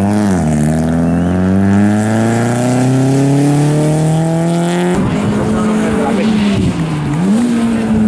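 Rally car engine accelerating hard out of a tight bend on wet tarmac, its revs climbing steadily for several seconds as it pulls away. After an abrupt cut, another car's engine runs at steady revs, drops briefly near the end and then climbs again.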